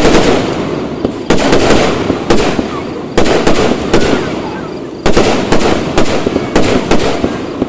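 Aerial firework shells bursting in quick succession, about ten loud bangs, each dying away in a long rolling echo before the next.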